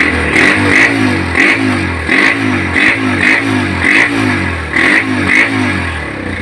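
Honda GL Pro Neotech's single-cylinder four-stroke engine running, revved in quick repeated throttle blips, its pitch falling back after each. It is running again on a replacement regulator-rectifier, after the faulty one had left it without electrical power.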